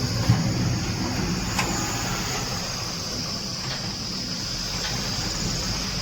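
Heavy diesel machinery engine running with a steady low rumble, with a steady high chirring of crickets over it and a brief click about a third of a second in.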